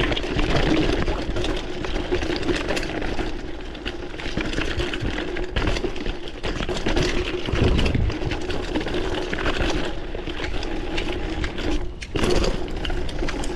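Mountain bike being ridden over a wet, slippery trail: tyres on the ground and the bike rattling over bumps, with a steady buzz underneath.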